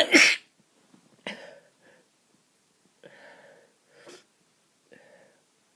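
A person with a heavy, snotty head cold sneezing once, loudly, right at the start, followed by four quieter short breathy sniffles and breaths.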